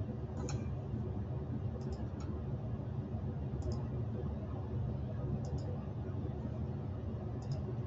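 Computer mouse button clicks, a quick pair every two seconds or so, over a steady low hum: the slides' bullet points being advanced.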